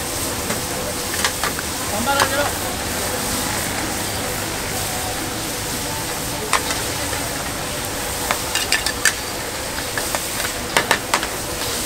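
Food sizzling at a street-food stall: a steady frying hiss, broken by sharp clicks that come more often in the second half and are loudest near the end.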